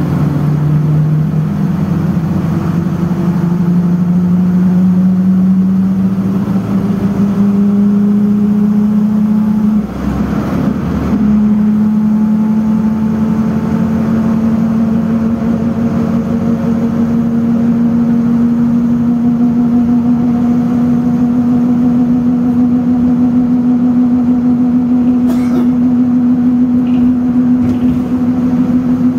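Bogdan A20110 city bus heard from inside the passenger cabin while driving. A steady hum climbs slowly in pitch as the bus gathers speed, broken by a brief rumble about ten seconds in.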